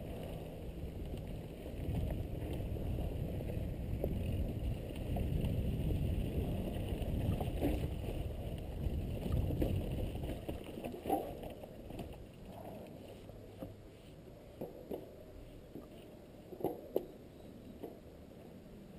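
Mountain bike rolling fast down a dry dirt singletrack, heard from a helmet camera: a steady rumble of tyres and frame over the ground mixed with wind on the microphone, easing off after about twelve seconds, with a few sharp clacks of the bike over bumps near the end.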